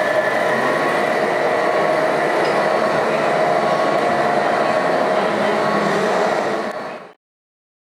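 RC model trucks' electric motors and gearboxes running steadily with a thin whine, fading out about seven seconds in.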